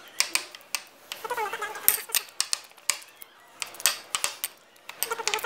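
Metal masher knocking and scraping against a small metal cup while ripe bananas are mashed: irregular sharp clinks, several a second.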